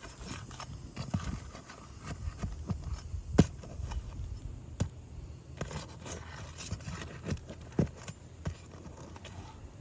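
Irregular knocks and scrapes from hand work on an asphalt shingle roof during a shingle repair. The sharpest knock comes about three and a half seconds in.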